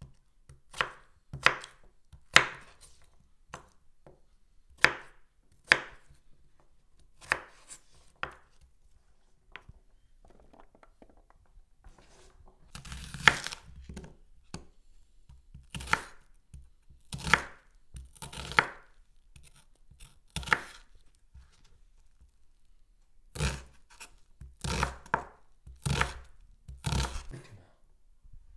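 Chef's knife chopping raw potato and red onion on a wooden cutting board: single sharp cuts knocking on the board, one or two a second with pauses between, and a quicker run of strokes near the end.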